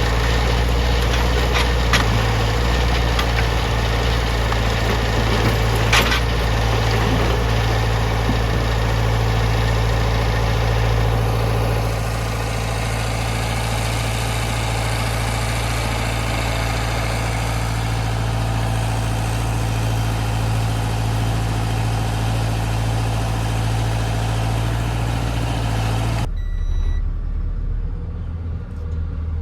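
Heavy diesel truck engine idling steadily, with a few sharp knocks in the first seconds. The engine sound cuts off abruptly near the end.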